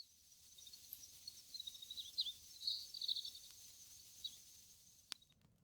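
Small birds chirping in short, quick calls, with a faint steady high-pitched tone behind them and a single sharp pop from the campfire about five seconds in.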